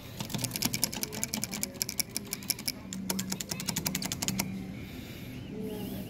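Claw machine joystick clicking fast as it is worked, about ten clicks a second, stopping about four and a half seconds in. A steady low hum and faint arcade music sit underneath.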